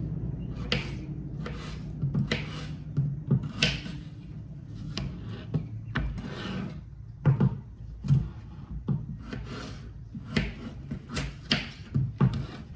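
Repeated rubbing and scraping strokes, about one or two a second, as food is stirred or worked in the kitchen.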